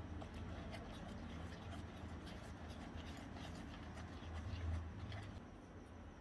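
Miniature metal spoon stirring thick cake batter in a tiny steel bowl: a run of quick scratchy scrapes and clicks against the metal, which die away about five seconds in. A low steady hum lies underneath.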